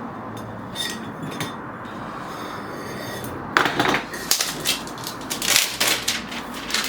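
Metal Smartwhip gas canister being handled: a few light metallic clinks, then from about halfway an irregular run of scraping and rustling strokes as its plastic jacket is stripped off.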